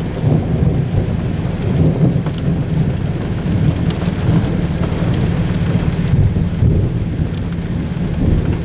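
Steady low rumble of thunderstorm noise: rain and wind, with no distinct thunderclap.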